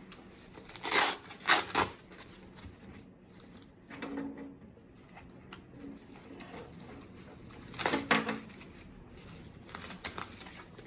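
Nylon webbing strap being pulled through a plastic buckle and the plate carrier's strap slots, in short quick pulls: a couple about a second in, a softer one around four seconds, and more around eight and ten seconds.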